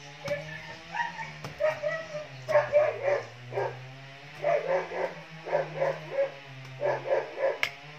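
A dog barking in quick runs of barks, several bursts of them, over a low steady hum, with a couple of sharp knocks.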